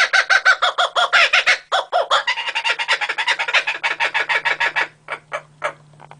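A bird calling in a rapid run of short repeated notes, about eight a second, that slows and fades after about five seconds.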